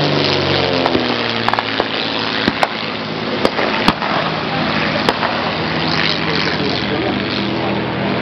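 A single-engine propeller plane flies past, its engine dropping in pitch as it goes away and fading to a low hum. Over it, a string of sharp single gunshots cracks out across the field, about eight in the first five seconds: blank fire in a mock battle.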